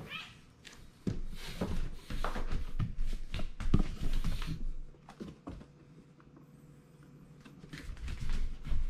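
Rustling, crinkling and light knocks of a kitten scrambling among cardboard boxes, paper and plastic bags, busiest in the first half and again near the end, with a faint steady low hum in the quieter stretch between.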